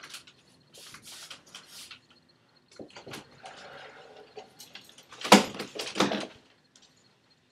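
A door opening and a person coming into a small room: scuffling and rustling, then a cluster of loud knocks and thumps about five to six seconds in.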